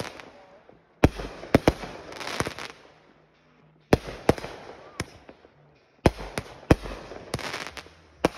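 Consumer aerial firework cake firing: clusters of sharp bangs about every two seconds, each followed by a crackling fizz from the bursting stars.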